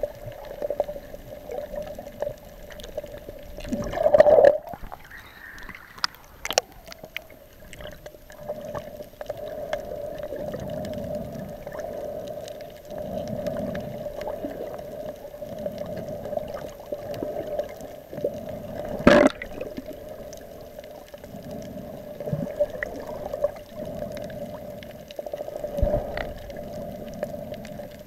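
Muffled underwater water noise heard through an action camera's waterproof housing: gurgling and swishing under a steady hum. A few sharp knocks stand out, the loudest about four seconds in and again about two-thirds of the way through.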